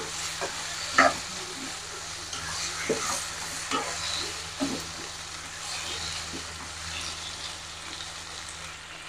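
Stir-fry of vegetables and gembus sizzling in a wok while a spatula tosses it, with scattered scrapes and knocks of the spatula against the pan, the loudest about a second in.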